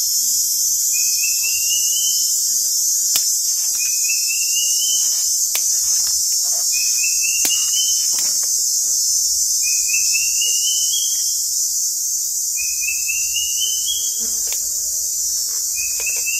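Steady, loud, high-pitched drone of forest insects. Over it, a short rising, pulsing call repeats about every three seconds, with faint clicks of hands handling fishing tackle.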